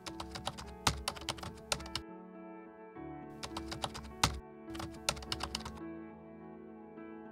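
Typing sound effect: quick runs of key clicks in three bursts that stop about six seconds in, over soft background music with held tones.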